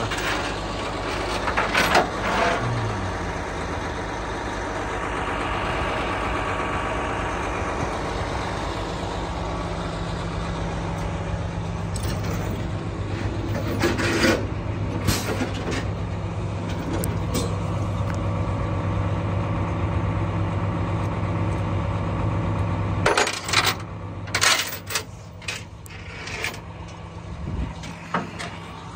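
A heavy truck engine running steadily, likely the tow truck, with scattered metallic knocks and clanks. The engine hum drops away about 23 seconds in, followed by a cluster of sharp knocks.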